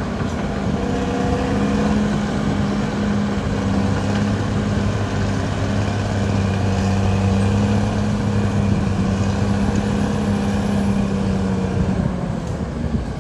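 Caterpillar D6R XL bulldozer's diesel engine running steadily, a low, even hum.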